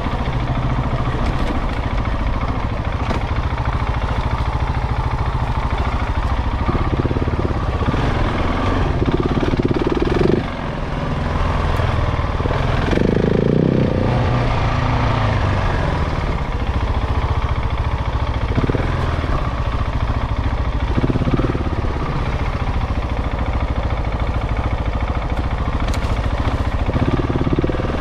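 KTM 690 Enduro single-cylinder engine running as the bike is ridden, the sound rising and falling with the throttle and dropping briefly about ten seconds in. The engine is in its break-in period.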